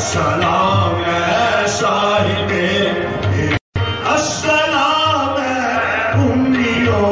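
Music: singing over a steady hand-drum beat. The sound cuts out completely for a split second just past halfway.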